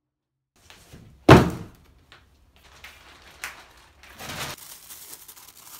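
A large cardboard box set down on the floor with a single loud hollow thunk just over a second in, followed by a few light knocks and the rustle of a clear plastic vacuum-storage bag being carried.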